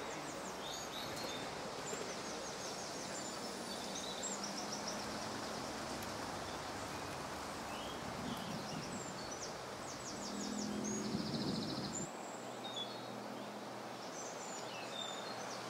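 Outdoor ambience: small birds chirping and trilling again and again over a steady background noise, with a brief low hum about ten seconds in.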